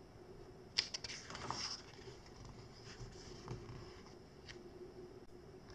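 Faint rustle of a picture book's paper page being turned by hand: a light tap about a second in, a brief swish of paper, then a few soft brushing sounds as the page is smoothed down.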